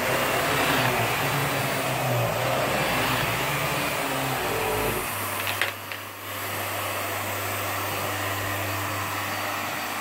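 Vax Mach Air upright vacuum cleaner running on carpet. A little past halfway there are a couple of sharp clicks, and its sound drops to a steadier, quieter hum.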